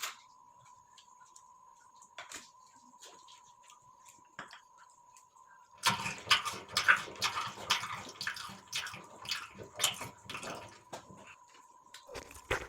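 Close-miked mukbang eating and drinking sounds: scattered faint mouth clicks, then, about six seconds in, a dense run of wet clicks and smacking lasting about five seconds, which starts again near the end. A faint steady high tone runs underneath.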